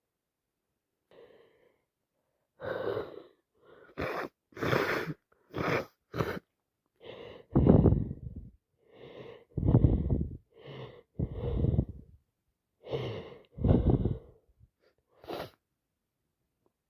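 Cold symptoms from a woman with a heavy head cold: several quick, sharp sniffs, then a run of about four loud explosive bursts, each after a gasping in-breath, the sound of a blocked, congested nose and chest.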